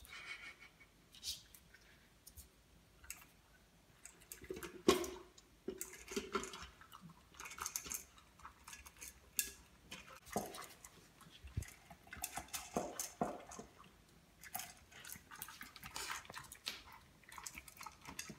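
Shiba Inu puppy eating dry kibble from a slow-feeder bowl: irregular clicks and clatters of kibble and bowl with chewing, the loudest a knock about five seconds in. The puppy is a fast eater, which the slow-feeder bowl is meant to check.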